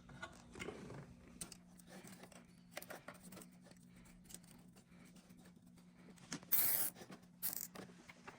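Scattered small clicks and rustles of hand-tool work on the exhaust over a faint steady hum, with two short hissing bursts about a second apart near the end.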